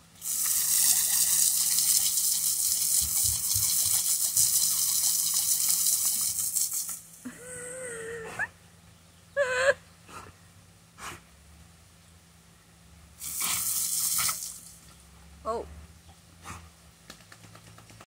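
Water hissing hard from a garden hose spray nozzle in two long spells, the first starting abruptly and lasting about seven seconds, the second shorter near the end. Between them come a few short, high, wavering cries, the loudest about nine and a half seconds in.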